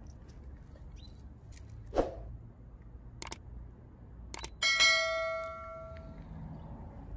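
Subscribe-button animation sound effect: a couple of mouse clicks followed by a bell-like notification ding that rings and fades over about a second and a half. Earlier, a short thump about two seconds in and a few scattered small clicks over a low background rumble.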